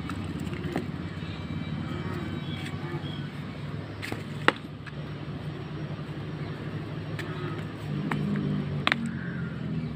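A steady low engine-like hum runs throughout, with a few sharp clicks: the loudest about four and a half seconds in, and two close together near the end.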